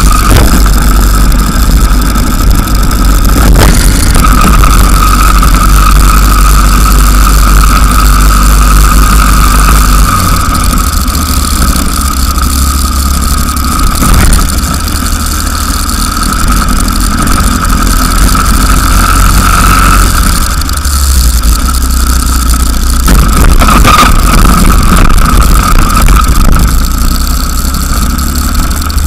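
Racing go-kart engine running at speed, heard loud from onboard the kart, its pitch rising and dipping a little through the corners, with a few brief knocks along the way.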